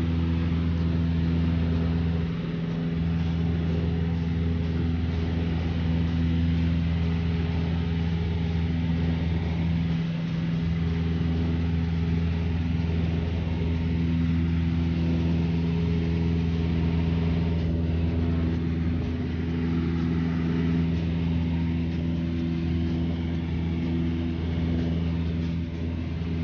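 Single-engine propeller plane heard from inside the cabin in level flight: a steady, unbroken engine and propeller drone, a deep hum with several held tones above it.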